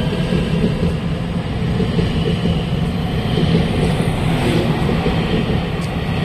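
Taiwan Railway EMU900 electric multiple unit pulling out of the station alongside the platform: a steady, loud running rumble of wheels on rail with a faint hum from the drive.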